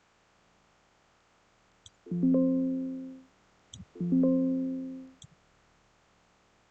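Electronic alert chime sounding twice, about two seconds apart, each ringing about a second and fading out. A faint click comes just before each chime and once more after the second.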